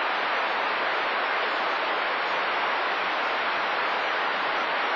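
Steady hiss of static from a CB radio receiver, with no voice coming through.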